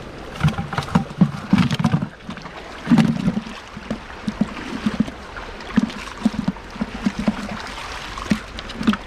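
Shallow stream water sloshing and splashing irregularly, in uneven bursts, as it is churned by wading and scooping for fish by hand.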